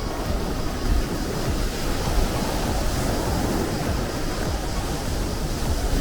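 Sea waves and surf washing steadily, swelling a little about halfway through.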